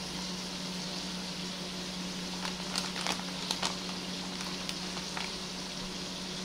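Steady kitchen hiss with a low hum underneath, and a handful of light taps and clicks in the middle as calzone toppings are handled and laid on the dough.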